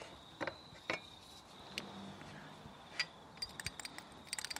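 Wire whisk clinking rapidly against a small glass bowl, stirring mayonnaise and sriracha into spicy mayo, starting about three and a half seconds in. Before that, a few scattered light clicks over a faint steady high tone.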